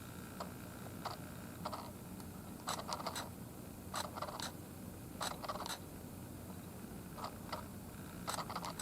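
Light clicks and scraping from a Sony RX100 compact camera being handled, in short clusters of a few clicks every second or so.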